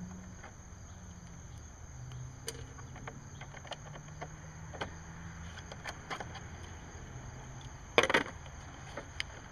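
Small clicks and taps of a Torx screwdriver backing screws out of the plastic top cover of a Kohler Courage XT-7 mower engine's recoil starter, over a faint low hum. About eight seconds in comes one short, loud clatter.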